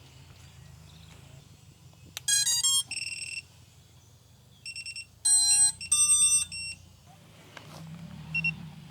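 Two runs of short electronic beeps, stepping through different pitches like a startup tune, from FPV drone gear being powered up. The first run comes about two seconds in and the longer second run a couple of seconds later, over a faint low hum.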